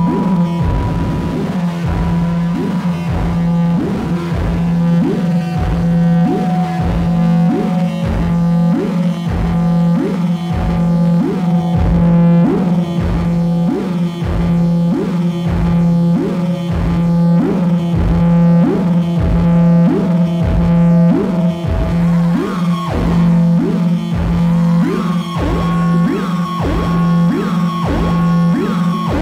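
Soma Lyra-8 organismic synthesizer and Gecko Loopsynth playing noisy industrial ambient: a loud steady low drone under a regular run of short, falling pulses, a bit faster than one a second. Thin held tones sit above and shift now and then, and a higher held tone comes in in the last few seconds.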